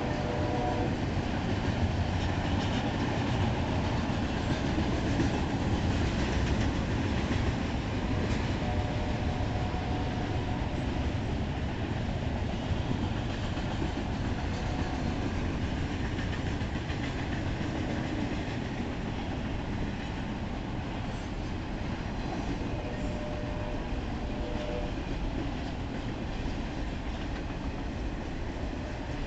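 Double-stack container train's well cars rolling past: a steady rumble of steel wheels on rail, with a few brief faint squeals. The noise eases slightly in the second half.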